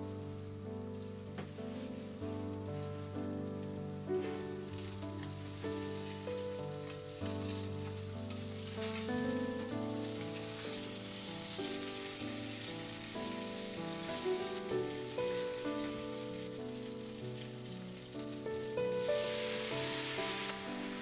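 Potato-starch-coated mackerel pieces sizzling as they pan-fry in oil, over background music. Near the end the sizzle swells loudly as liquid seasoning is poured into the hot pan.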